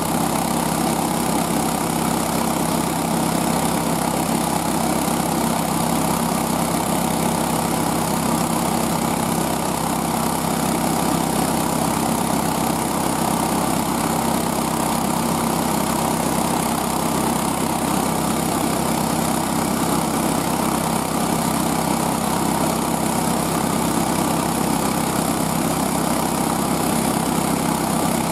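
Small gas engine of a homemade motorised sled running at a steady speed as the sled travels over snow.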